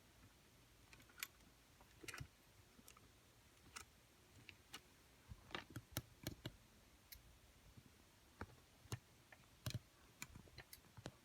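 Faint, irregular metallic clicks and taps from a small lever padlock being handled and clamped into a vise. A few of the clicks come close together a little past the middle.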